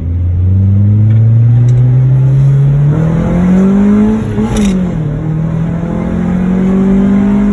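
A Honda four-cylinder engine running through a newly fitted aftermarket exhaust with its silencer insert still in, pulling as the car accelerates. The engine pitch climbs, drops sharply at a gear change about four and a half seconds in, then climbs again.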